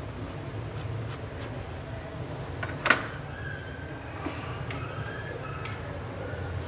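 A single sharp knock about three seconds in, over a steady low hum, with a few faint clicks and faint wavering tones after it.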